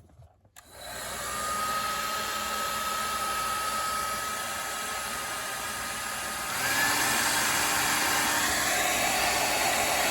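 Panasonic Nanocare EH-NA2K hair dryer switched on: a steady rush of air with a thin fan whine once it is up to speed. About two-thirds of the way through it steps up, louder and higher in pitch.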